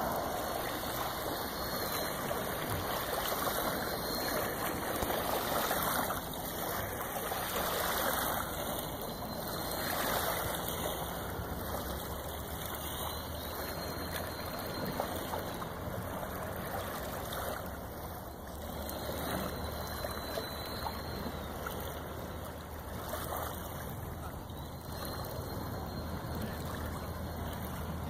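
Steady rushing, gurgling water, with a faint low hum that becomes clearer about eleven seconds in.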